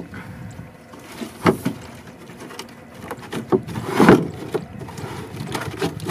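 Handling noise from a net-covered plastic fish crate on the floor of a boat: rustling as a rubber strap is pulled off, and a few knocks against the crate and hull, the loudest about a second and a half in and about four seconds in.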